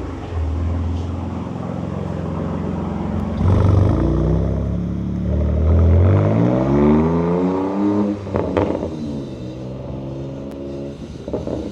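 BMW M4 G82's twin-turbo inline-six through an aftermarket axle-back exhaust with the stock resonators removed, valves open in Sport. It runs at a steady idle at first, then pulls away hard with its pitch climbing. A sharp break at an upshift comes about eight and a half seconds in, then the pitch climbs again as the car fades into the distance.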